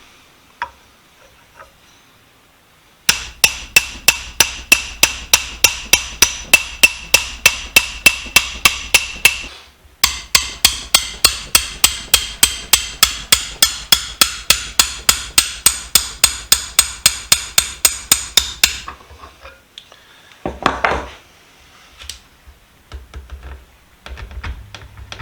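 Hammer tapping a steel punch in quick, even, ringing metallic strikes, about four a second, in two long runs with a short pause between, driving the steel shaft out of a wooden screwdriver handle held in a vise. A few scattered knocks and a scrape follow.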